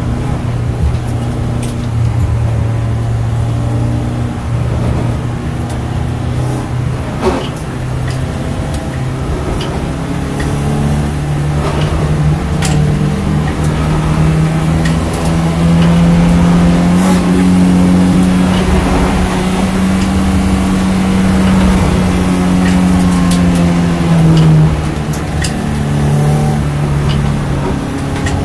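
In-cabin engine note of a BMW Compact race car driven slowly at about 30 mph. The pitch sits low at first, rises about halfway through and holds, then dips briefly near the end before climbing again.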